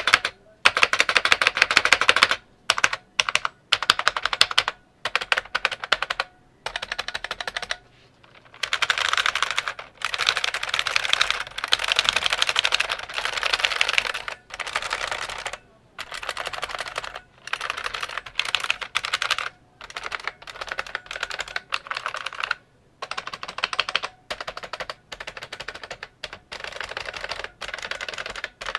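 Fast typing on an IBM Model M keyboard with buckling-spring switches: rapid, clicky keystrokes in runs of one to several seconds, broken by short pauses.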